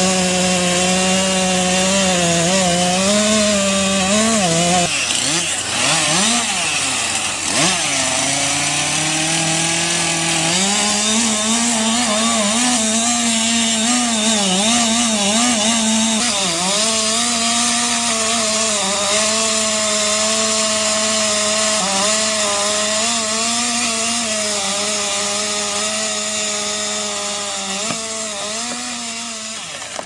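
Gas chainsaws cutting through large tree trunks, the engines held under load with their pitch wavering as the chain bites. Around 5 to 10 seconds in, the pitch swoops and drops before a steady cut takes over at a slightly higher pitch, which fades a little near the end.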